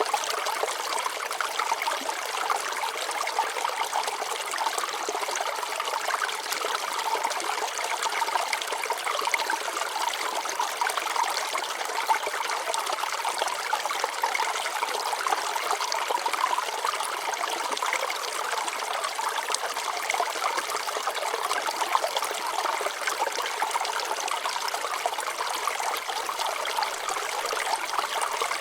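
Shallow stream water flowing and trickling over rocks, a steady babbling with fine splashy flicker and no change in level.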